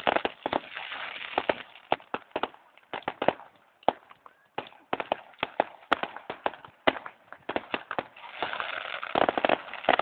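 Fireworks going off in quick succession: a rapid, irregular string of sharp bangs and crackles, several a second, with denser crackling near the start and again toward the end.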